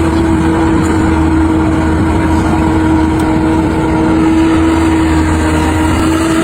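An engine running steadily at a constant speed, with a steady hum.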